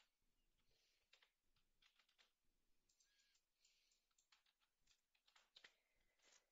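Faint, irregular clicks of a computer keyboard and mouse, a few quick keypresses at a time, over near silence.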